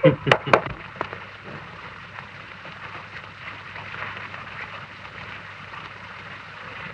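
Steady hiss and crackle of an early sound-film optical soundtrack, with no dialogue over it; a few short, sharp clicks in the first half-second.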